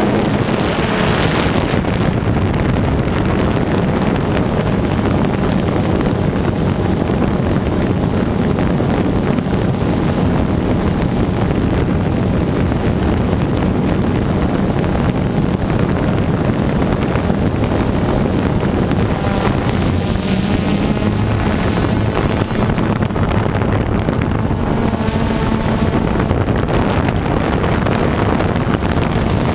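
Multirotor camera drone's electric motors and propellers giving a steady hum, heard through the onboard microphone with wind noise; the pitch of the hum shifts a little about twenty seconds in.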